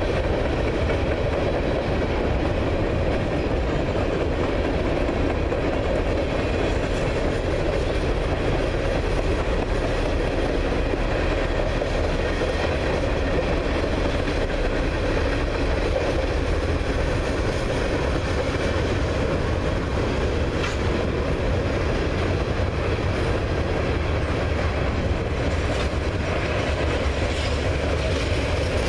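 CN freight train rolling past, tank cars and covered hoppers going by: a steady noise of steel wheels on rail with some clickety-clack of wheels over rail joints.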